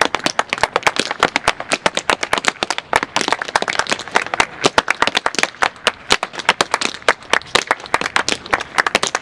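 Tap dancing: tap shoes striking a portable wooden tap board in a fast, dense run of sharp, irregular clicks.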